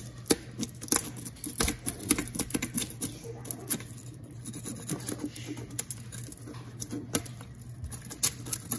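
Scales being scraped off a bluegill: quick, irregular scraping strokes with clicks as the scales flick off.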